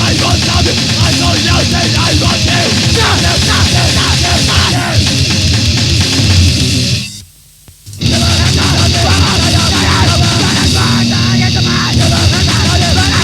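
Grindcore/power-violence band playing loud, dense and aggressive, with a sudden stop of about a second some seven seconds in before the band crashes back in.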